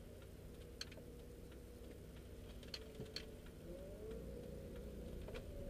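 Car interior while driving: a low steady hum of engine and road, with a faint engine note rising slightly partway through. A few light ticks and clicks sound, about a second in and a few around three seconds in.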